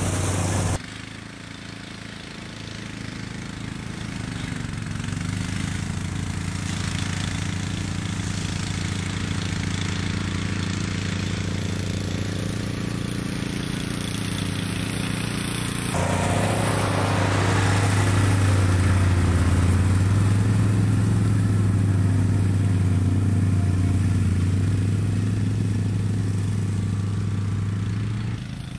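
Engines of an ATV-towed Rammy brush cutter and the ATV pulling it, running steadily while mowing tall grass. The sound dips about a second in, builds slowly, then steps up louder about halfway through.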